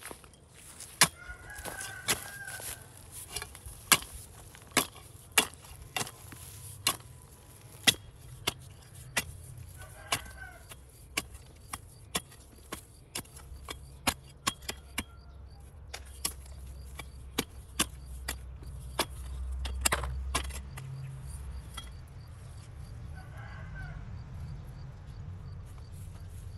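A hand digging tool chopping into hard, dry soil, with sharp strikes a little under a second apart that stop about twenty seconds in. A rooster crows three times in the background: near the start, about ten seconds in, and near the end.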